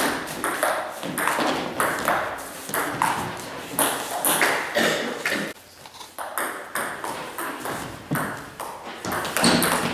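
Table tennis ball clicking sharply again and again off rackets and the table, with the clicks echoing in a hall.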